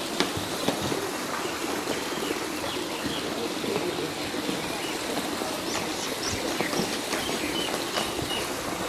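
Water splashing and sloshing steadily, with many small splashes as a crowd of turtles jostles at the surface of a pond.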